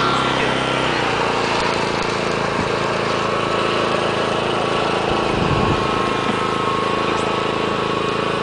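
A small engine running steadily, a constant hum of several tones; its note shifts slightly about a second in.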